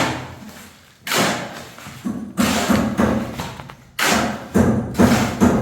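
Intro music: two deep booming hits, each with a long fading tail, about three seconds apart, and a low pulsing bass beat coming in about halfway through.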